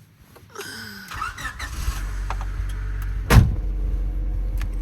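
1997 Honda Civic cabin: the ignition key is turned and a low steady hum starts. About three seconds later one loud clunk sounds, typical of the alarm-controlled power door locks engaging as the ignition comes on.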